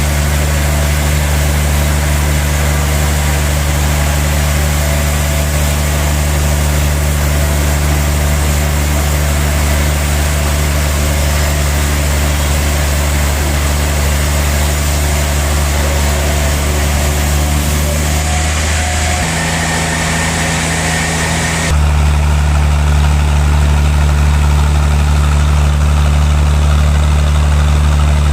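Sawmill machinery running steadily: a deep, constant engine-like hum with a hiss over it. The sound changes abruptly about two-thirds of the way through and again a few seconds later.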